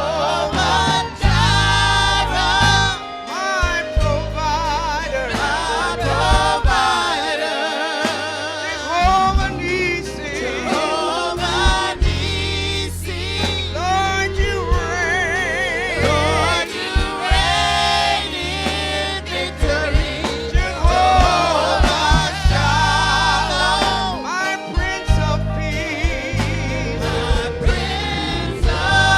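Gospel music with a choir and lead voices singing over a band with a steady bass line.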